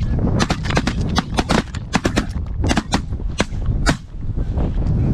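A rapid volley of shotgun blasts from several hunters firing together at ducks and geese, about a dozen shots over some four seconds. Wind rumbles on the microphone underneath.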